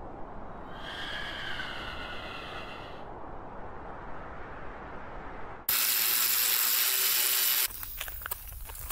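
Steady wind-like noise, then a loud hiss lasting about two seconds that cuts in and stops abruptly, followed by a run of light metallic clicks and clinks near the end.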